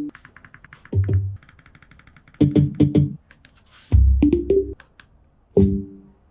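Sparse electronic music: deep bass hits about a second in and again near four seconds, short pitched synth stabs in quick pairs, and runs of fast clicking ticks between them.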